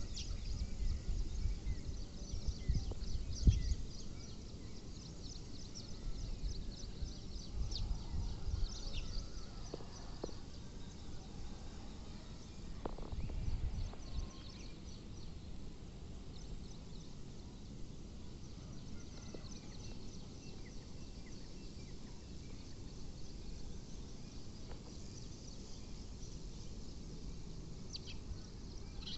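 Outdoor ambience with faint, rapid, high-pitched chirping and a low rumble on the microphone that comes in gusts during the first half.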